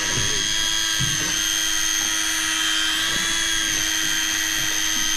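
Electric deep-drop fishing reel's motor whining steadily as it winds line in, straining under the load of a very heavy fish.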